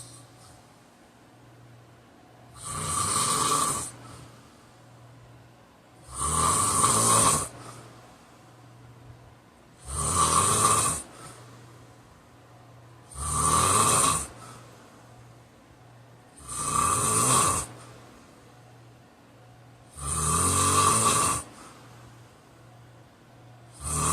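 A man snoring in a steady rhythm, about one snore every three and a half seconds, each a little over a second long, with quiet breathing in between.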